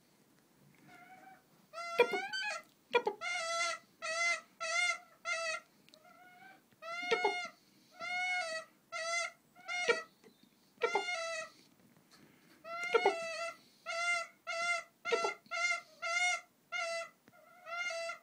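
Female Siberian goshawk calling in runs of short, repeated, slightly pitch-bent calls, about one or two a second, starting about a second and a half in, with a few sharp clicks among them.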